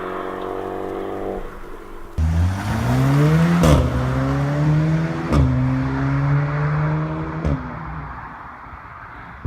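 A VW Group car with a DSG dual-clutch gearbox accelerating hard, its engine note rising between three quick upshifts. Each upshift brings a short sharp exhaust crack, the 'DSG fart', as the revs drop. It starts after a steady engine note and fades near the end.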